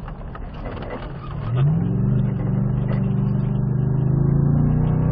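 Ford Raptor R's supercharged V8, heard from inside the cab, running low and rough through a turn. About a second and a half in the throttle opens: the engine note rises and then holds loud and steady as the truck accelerates on dirt.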